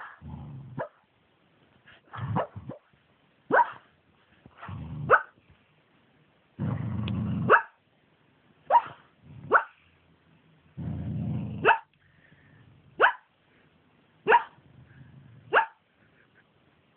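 A dog barking in its sleep while dreaming: a series of short, squeaky, muffled barks about every second or so, several of them led in by a low rumbling sound.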